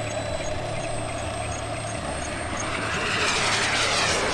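Model turbine jet engine noise, a steady whine over a low hum, swelling about three seconds in into a sweeping whoosh as a jet passes.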